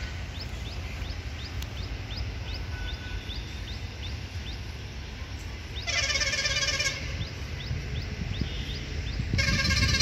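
Electric locomotive's air horn sounding twice from a distance: a short blast about six seconds in and a longer one near the end, each starting and stopping sharply. A steady low rumble and a short, high chirp repeating about twice a second run underneath.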